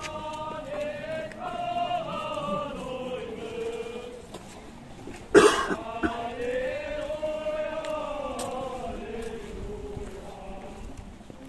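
Easter riders, a group of men on horseback, singing a processional hymn in unison, with long held notes that slide slowly from pitch to pitch. A sudden loud cough-like burst breaks in about five seconds in.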